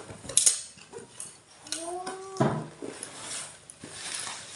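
Clicks, clatter and rustling of a parcel being opened and handled, with a short vocal sound about two seconds in.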